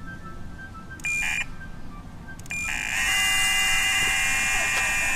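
Electronic bite alarm on a fishing rod: one short high beep about a second in, then a continuous high-pitched scream from about two and a half seconds in, the sign of a fish taking the bait and pulling line.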